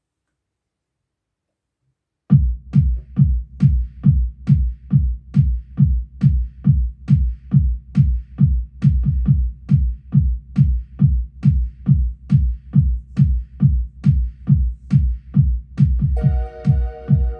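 Yamaha Tyros 4 arranger keyboard playing a trance drum-machine pattern. After about two seconds of silence, a steady deep kick beat starts at about two beats a second, and a sustained synth chord joins near the end.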